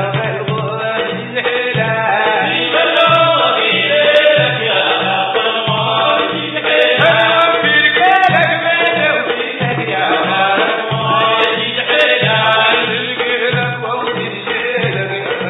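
A Sudanese Sufi madeeh (praise song for the Prophet) sung by a group of men in chorus, over a steady drum beat of about two beats a second.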